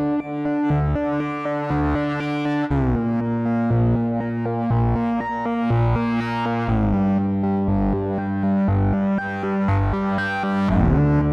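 Korg opsix six-operator FM synthesizer playing held chords that change about every four seconds, over a bass line of shorter repeated low notes.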